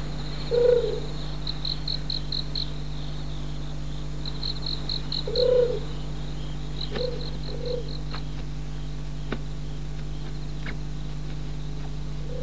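Night ambience: crickets chirping in short pulsed trills every few seconds, and an owl hooting, the hoots the loudest sounds, about a second in and again about five seconds later, with softer hoots after that. A few faint clicks fall in the second half.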